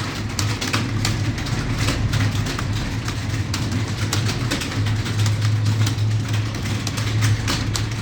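Computer keyboards being typed on by several people at once: a dense, irregular clatter of key clicks over a steady low hum.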